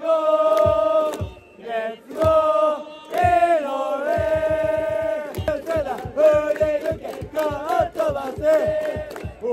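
Baseball cheering section's trumpets playing a cheer-song melody in long held notes, with crowd chanting and drumbeats under it; the drums pick up to a fast steady beat about halfway through.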